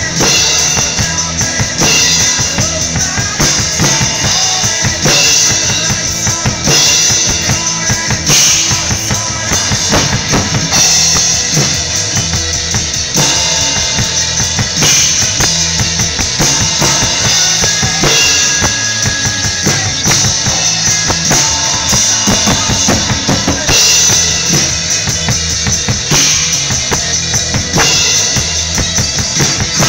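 Acoustic drum kit played live to a recorded rock song: snare, bass drum and cymbals in a steady rock beat.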